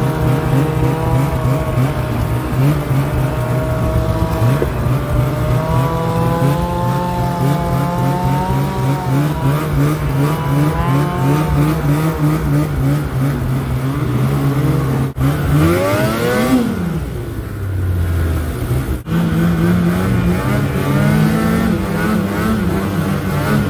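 Snowmobile engine running under throttle while riding through snow, its pitch rising and falling with the throttle. About two-thirds through it revs sharply up and back down.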